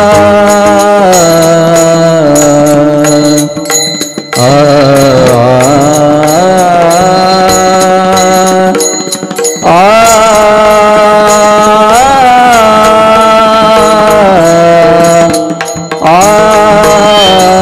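Devotional kirtan singing: a singer holds long, high notes that slide and bend, with no words made out, breaking off briefly three times. Percussion keeps a steady beat underneath.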